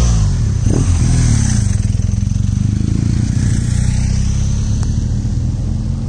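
Adventure motorcycles passing close one after another, their engine pitch dropping as each goes by in the first second or two. A steady low engine rumble follows.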